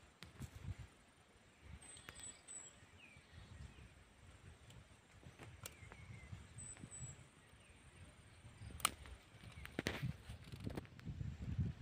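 Low, uneven rumbling noise on the microphone, with a few short high bird chirps. Two sharp clicks come near the end, the first one the loudest sound.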